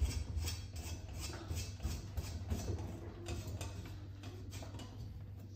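Light regular ticking, about three clicks a second, over a steady low mains hum, from the home-made egg turner driven by a small grill rotisserie motor while a hand works on its frame.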